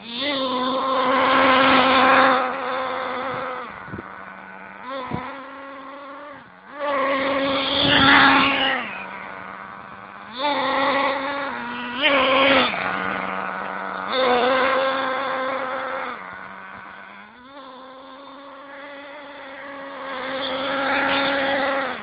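STS D30M nitro engine of an RC monster buggy being broken in: a high-pitched buzz that settles to a lower steady pitch between throttle blips and climbs in pitch in short bursts about five times.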